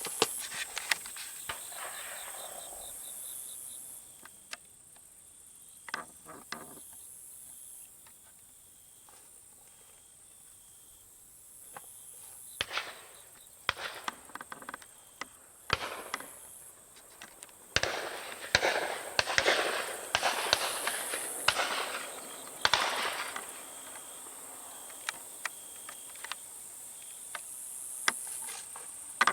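Scattered distant shotgun shots from dove hunters across the field, heard as sharp reports at irregular intervals, over a steady high-pitched insect drone. A few seconds of rustling noise come past the middle.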